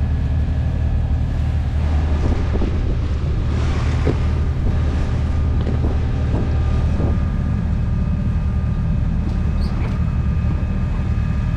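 Steady low hum and rush of a sailing yacht under way, with wind buffeting the microphone and a few light knocks as ropes are handled.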